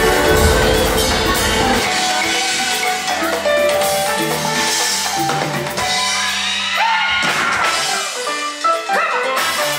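Live stage-show music from a band, with the drum kit prominent under held instrumental notes and a voice gliding in pitch in the last few seconds.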